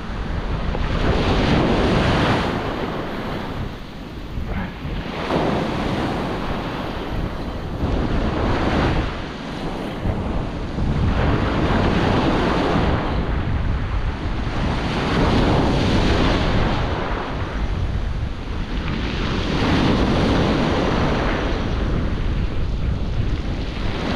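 Small waves breaking and washing up over a stony beach, surging every few seconds, with steady wind buffeting the microphone.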